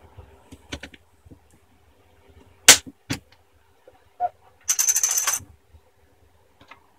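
Sharp plastic clicks as the laptop's screen bezel is pressed and snapped back onto the lid, the loudest about halfway through. Shortly after comes a brief metallic jingle, like small metal parts rattling together.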